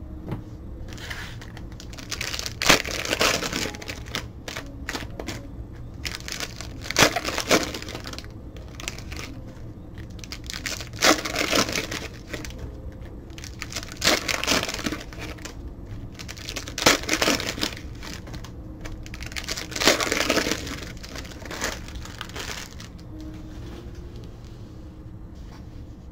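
Foil wrappers of trading-card packs being torn open and crinkled, one pack after another, six times at roughly three- to four-second intervals, with quieter handling of cards in between.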